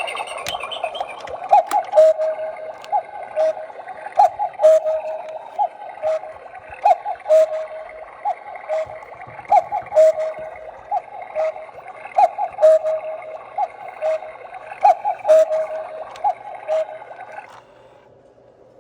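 Battery-powered quartz cuckoo clock playing its electronic two-note cuckoo call (a higher note falling to a lower one) over and over, about once a second, with small clicks between the calls. It stops abruptly shortly before the end.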